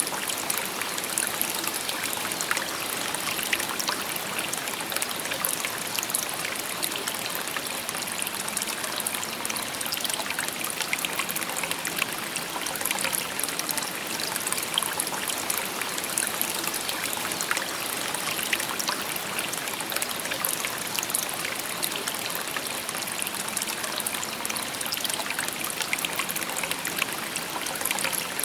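Shallow stream babbling and trickling over stones, a steady, even rush of water with many small splashes and no pauses.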